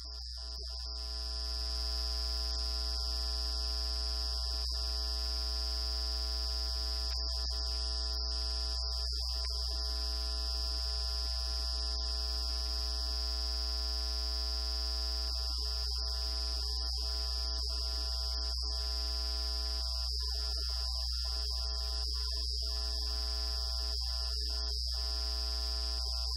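Steady electrical mains hum and buzz with a high, steady whine above it, rising over the first two seconds and then holding unchanged.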